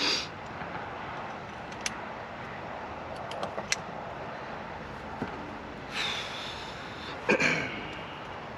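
Handling noises of a Brocock Atomic XR PCP air carbine being readied to shoot: a short clatter at the start, scattered small clicks, then a rasping slide and a sharp metallic clack just after seven seconds, the loudest sound here.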